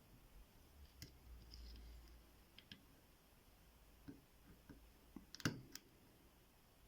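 Faint, sparse metallic clicks of a lock pick working the pin stack of an Abus T65AL/40 brass padlock under tension, with a slightly louder pair of clicks about five and a half seconds in.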